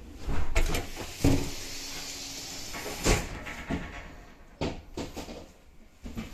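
Push-button sliding door in a train: a knock, then a hiss with a steady hum for about a second and a half as the door mechanism runs, ending in a thud. A few lighter knocks come before and after.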